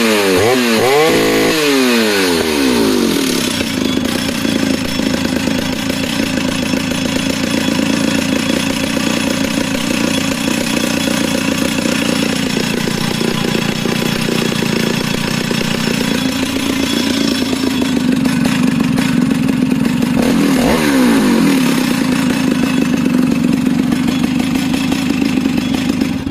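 Stihl 076 AVE chainsaw's big two-stroke engine blipped up and down a few times, then held at a steady high speed. Its pitch dips and climbs once about 20 seconds in, and it cuts off abruptly at the very end.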